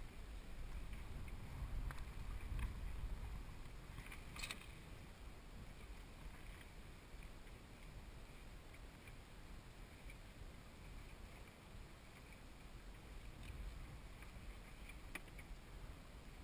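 Low steady rumble of wind and sea around a sailing yacht, with a few faint clicks and knocks as diving gear is handled on deck.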